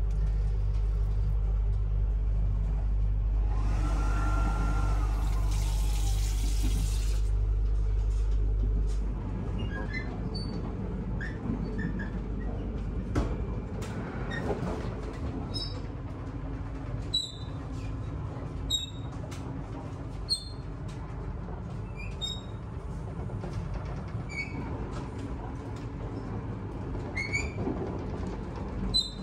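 Water runs from an automatic washbasin tap in a shinkansen lavatory for about four seconds over a steady low hum of the moving train. From about nine seconds in the hum drops, leaving the train's running noise with scattered light squeaks and clicks.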